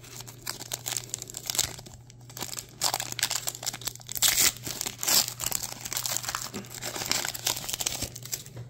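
Foil Pokémon booster-pack wrapper crinkling and tearing in the hands as it is ripped open and the cards are pulled out, a dense run of irregular crackles.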